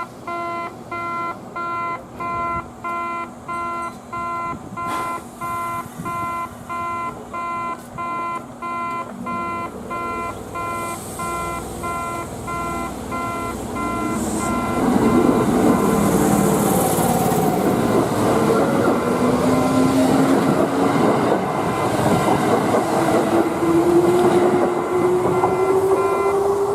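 An in-station level crossing's electronic warning bell chimes slowly, about once a second. From about halfway a Kintetsu 8600 series electric train sets off over it, the train noise growing and its motor whine rising steadily in pitch as it accelerates.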